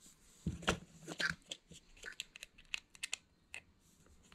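Irregular clicks and scrapes of a precision screwdriver being handled, its metal bit working against a plastic tape measure; the sounds are busiest in the first second and a half, then come as scattered ticks.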